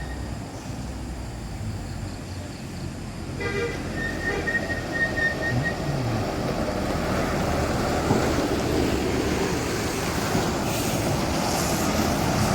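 Heavy road traffic passing close by: engine and tyre noise that grows louder from about four seconds in and stays loud. A brief tone, like a short horn note, sounds about three and a half seconds in.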